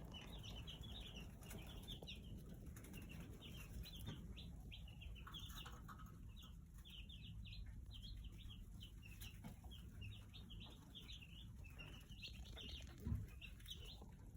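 A flock of Cornish Cross broiler chicks peeping, a dense, continuous chorus of short high cheeps. There is one soft thump near the end.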